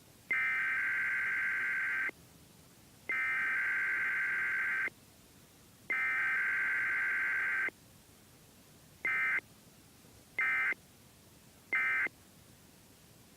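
Emergency Alert System digital data tones. Three long bursts of about two seconds each, a second apart, carry the test's SAME header. Three short bursts near the end are the end-of-message signal.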